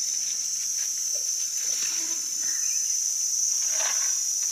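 Steady high-pitched drone of forest insects, with faint rustling in the leaf litter and a brief louder rustle near the end.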